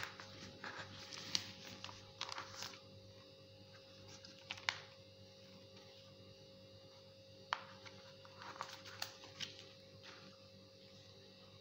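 Hands handling a sheet of squared paper pattern on skai fabric: soft paper rustles and brushing, with a few sharp taps. A faint steady hum runs underneath.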